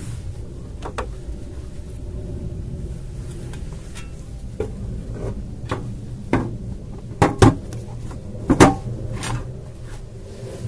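Knocks and clatters of an inverter's front cover being handled and fitted back onto the case, the two loudest knocks in the second half, over a steady low hum.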